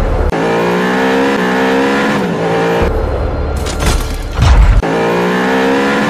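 Electronic montage music with a stepping synth melody and a heavy bass section, mixed with car sound effects.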